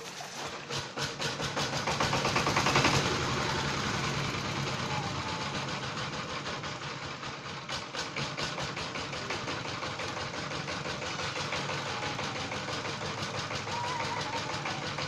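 A small engine running with a rapid, even knocking beat, growing louder over the first three seconds and then holding steady.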